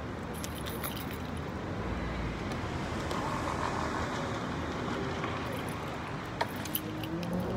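Steady road traffic noise with a car passing. Near the end the car's engine note rises in pitch as it pulls away. A couple of sharp clicks come from the bicycle being handled.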